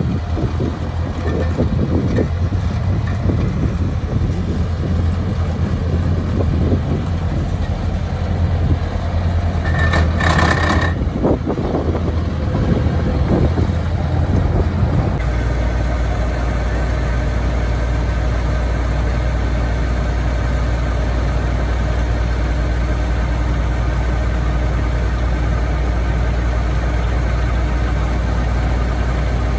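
Kubota DC-105X combine harvester's diesel engine running, uneven for the first half, with a short beeping tone about ten seconds in, then settling into a steady drone from about fifteen seconds.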